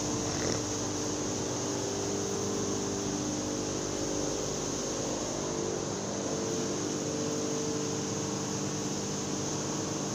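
Grain-mill machinery running: a steady mechanical din made of several constant hums with a high, even hiss over it.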